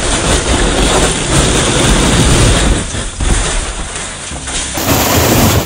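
A large curled slab of snow sliding and scraping off a corrugated metal roof as it is pushed from below with a long-handled tool, a loud continuous rumble.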